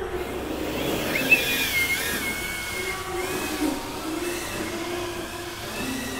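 Small brushless motors of a 2-inch FPV whoop drone buzzing and whining in flight, the pitch rising and falling with the throttle; the whine picks up about a second in as it lifts off.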